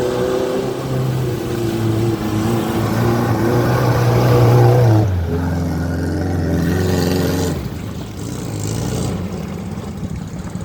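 Off-road vehicle engine running under load. Its pitch holds and climbs slightly, drops abruptly about five seconds in, and gives way to rougher rumbling noise about two and a half seconds later.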